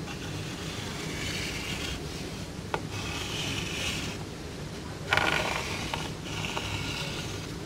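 Chalk scraping across a blackboard in several strokes of about a second each, with a sharp tap a little under three seconds in and the loudest stroke a little after five seconds in.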